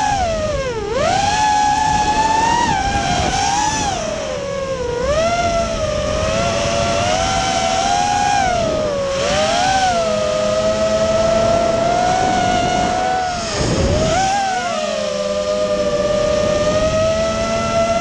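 FPV racing quadcopter's electric motors and propellers whining, the pitch rising and falling with the throttle as it manoeuvres. The whine dips sharply twice, shortly after the start and again about three quarters of the way through, where the throttle is chopped.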